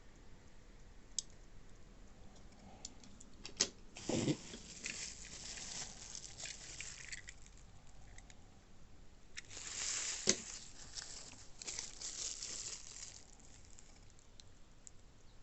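Packaging being handled and unwrapped: rustling and tearing of wrapping with a few sharp clicks. It comes in two spells, about four seconds in and again around ten seconds.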